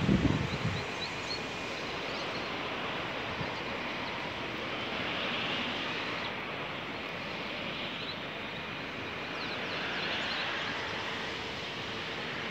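Steady distant road-traffic noise that swells gently twice, with a few faint high chirps over it.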